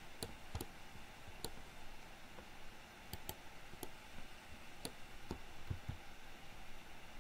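Computer mouse button clicks and keyboard key presses while working at the computer: about ten sharp, irregularly spaced clicks over faint room hiss.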